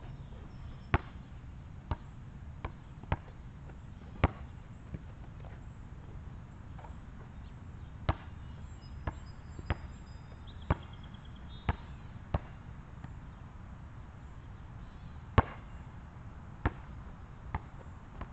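Basketball bouncing on an asphalt court: single sharp bounces at uneven intervals, some in loose runs and some a second or more apart, over a steady low outdoor rumble.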